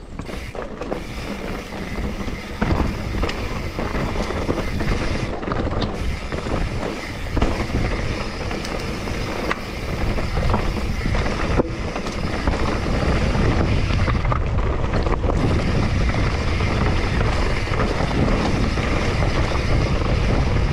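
Mountain bike riding fast down a rocky trail: tyres rumbling and crunching over stones and roots, with wind buffeting the microphone and a few sharp knocks from the bike. It gets louder about halfway through.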